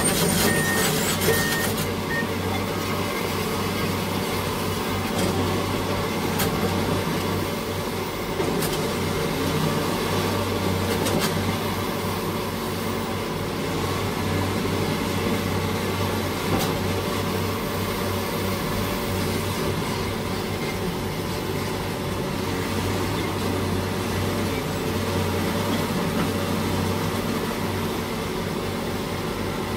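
Heavy construction equipment's diesel engine running steadily, a constant low drone, with a few faint knocks. A few short high beeps sound in the first second or so.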